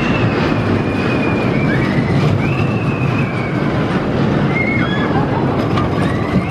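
Steel roller coaster train by Pax running along its tubular steel track: a loud, steady rumble, with high wails gliding up and down over it several times.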